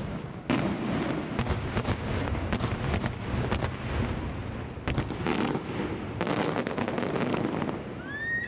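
Aerial fireworks display: a rapid barrage of shell bursts and bangs, several a second, over a continuous rumble. A rising whistle sounds near the end.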